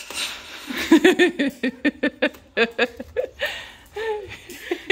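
Girls laughing and squealing with excitement, with a quick string of short laughing bursts about a second in, then more laughter and excited exclaiming.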